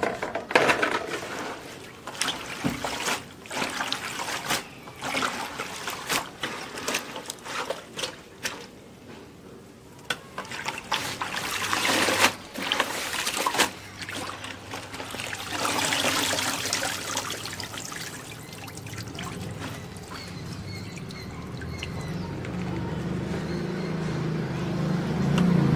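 Hands swishing and splashing freshly cut spinach leaves in a plastic tub of water, with water trickling and pouring off the leaves as they are lifted out. The splashing comes in uneven bursts, and a low hum builds near the end.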